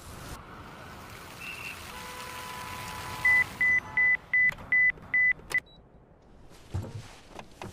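Digital alarm clock beeping: seven rapid, loud, even-pitched beeps, cut short with a click as it is switched off. A swelling hiss comes before the beeps.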